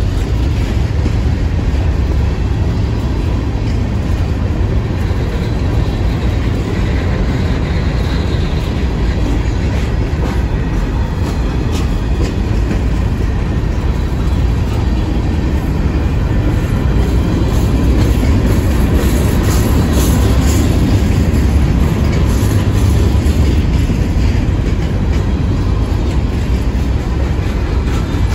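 Herzog ballast hopper cars rolling slowly past at under 10 mph, their steel wheels making a steady, heavy rumble on the rails, a little louder past the middle.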